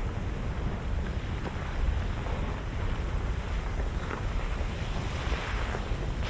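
Steady low rumble of Mount Bromo's active crater venting, which rises and falls a little, mixed with wind buffeting the microphone.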